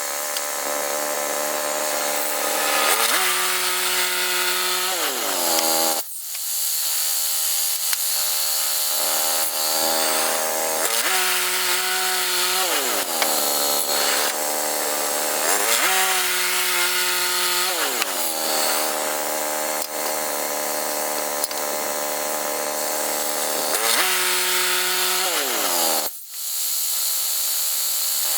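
Woodland Mills HM122 band sawmill running, its gasoline engine's pitch dipping and recovering several times as the blade cuts through a pine log. The sound breaks off abruptly and resumes twice.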